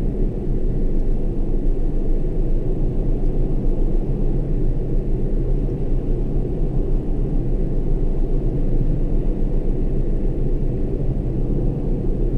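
Car cruising at steady speed, heard from inside the cabin: a steady low engine hum and tyre rumble from the road.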